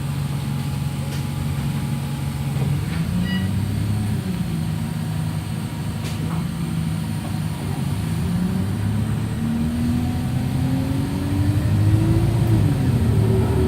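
Wright StreetLite single-deck bus running on the move, its engine and drivetrain note shifting in pitch, climbing steadily for a few seconds and then dropping near the end.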